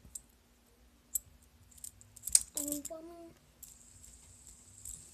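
Scattered small clicks and taps of a fidget spinner being handled and balanced on a toe, with a brief murmur of voice about halfway through.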